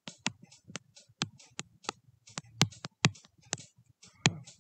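Stylus tapping and clicking against a tablet surface while handwriting: a quick, irregular run of sharp clicks, about four a second, one at each pen stroke.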